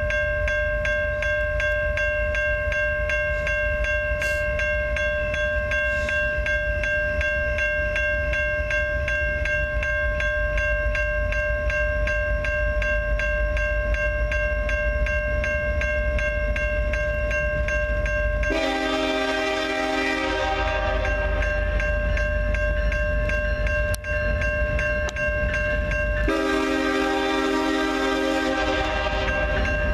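A railroad grade-crossing bell rings steadily. Over it the approaching locomotive's five-chime horn (a Nathan K5LLA) sounds two long blasts, about two thirds of the way through and again near the end.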